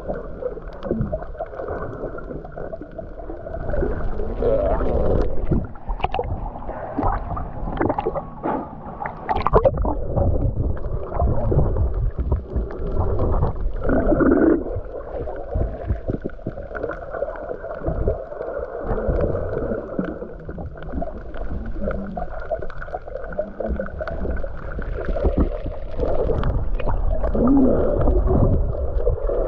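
Muffled sloshing and gurgling of water, with uneven surges in loudness and little high-pitched sound.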